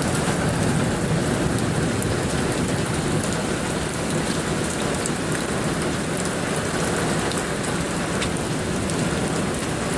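Heavy rain from a thunderstorm pouring steadily, with a few sharp ticks scattered through it.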